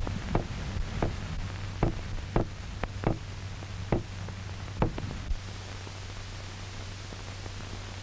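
Sharp knocks, about eight at irregular spacing over the first five seconds and then stopping, over the steady low hum and hiss of an old film soundtrack. The knocks are a sound stimulus for testing how an isolated dog head reacts to noise.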